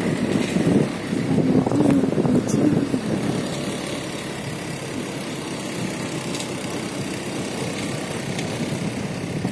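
A motor scooter's engine running as it rides along the road, with road noise heard from the pillion seat. It is a little louder and rougher for the first few seconds, then runs evenly.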